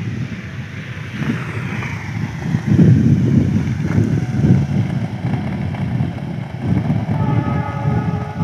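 Wind buffeting the microphone, with a motorcycle's engine as it rides past close by; its steady engine hum comes up near the end.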